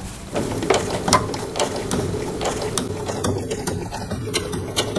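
Sewing machine running steadily, stitching single-fold bias tape onto denim, starting about a third of a second in, with a run of regular light clicks from the mechanism.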